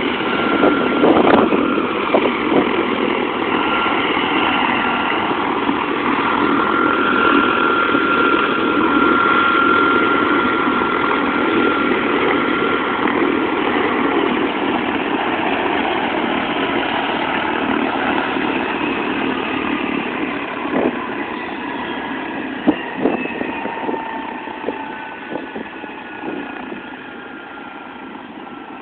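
Helicopter engine and rotor running on the ground with a steady whine, growing quieter over the last several seconds, with a few sharp knocks in that stretch.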